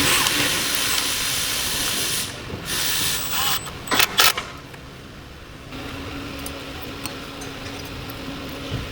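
Aerosol spray can hissing: a long spray of about two seconds, a shorter one, then a few quick short squirts. A fainter steady hum follows in the last few seconds.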